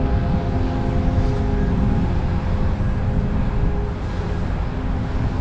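Wind buffeting the microphone of a helmet-mounted action camera on a moving bicycle, a dense low noise that never lets up. Held musical notes sound above it, most clearly in the first two seconds.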